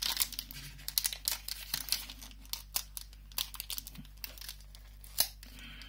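Foil wrapper of a Pokémon booster pack crinkling and tearing as it is pulled open by hand: a run of short, sharp crackles, with a louder one about five seconds in.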